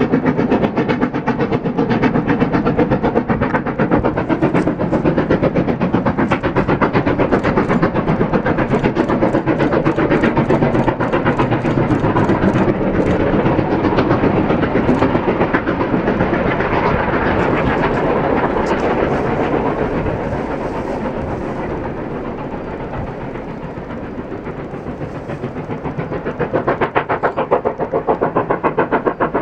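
Steam locomotive hauling a train of carriages across a viaduct, its working giving a steady rhythmic beat; the sound dips for a few seconds past the middle and comes back up near the end.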